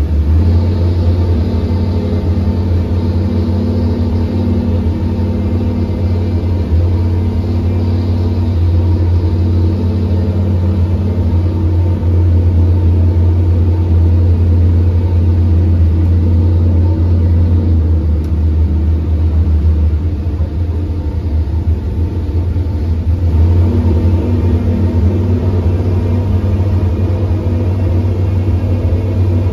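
Euro NASCAR stock car's engine idling steadily after start-up, a deep even rumble heard from inside the cockpit.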